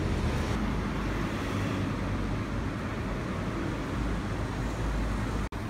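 Steady street traffic noise, a continuous rumble of passing cars, which breaks off abruptly for a moment near the end.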